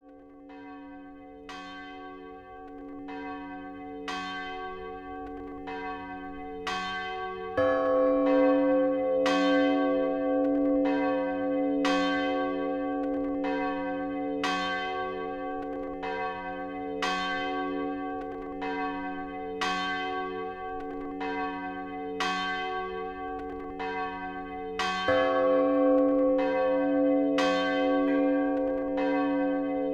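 Several church bells of different pitch pealing together, their strokes overlapping at a little under one a second. The peal fades in over the first few seconds, swells louder about seven seconds in and again near the end.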